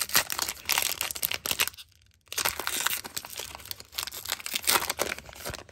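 Foil Pokémon booster pack wrapper being torn open and crinkled by hand, a dense crackling with a short pause about two seconds in.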